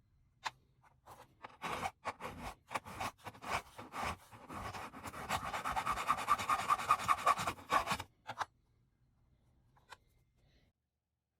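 Quick rasping back-and-forth strokes of a small hand file working a small metal part. The strokes start ragged, settle into an even rhythm of about five a second, then stop suddenly.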